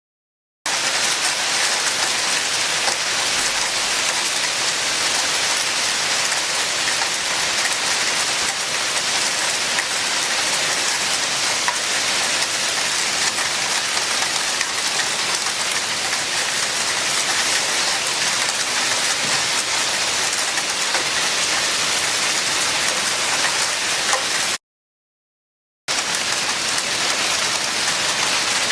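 Hailstones pelting down on hard surfaces, a dense, steady clatter that starts abruptly just under a second in and cuts out completely for about a second near the end before resuming.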